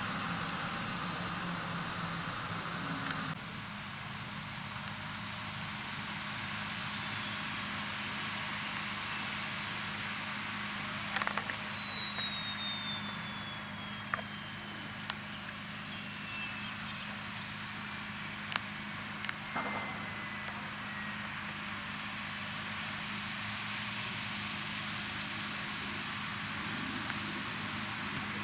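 Small gas turbine of an EC135 scale model helicopter winding down after landing: a thin high whine that falls steadily in pitch over about fifteen seconds and fades out, under a steady low hum with a few faint clicks.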